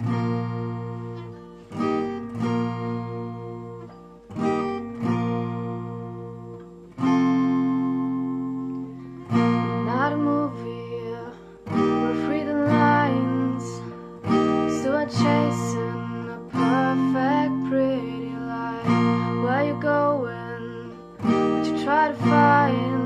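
Steel-string acoustic guitar with a capo, strummed in full chords for a song's introduction, each chord struck and left ringing before the next about every two seconds.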